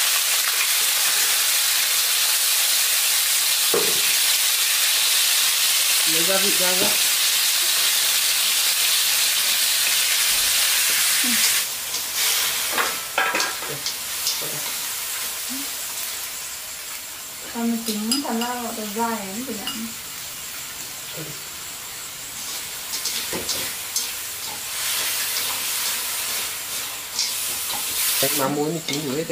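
Food sizzling in hot oil in a pan, loud at first, then dropping suddenly to a quieter sizzle about eleven seconds in, with scattered clicks of stirring.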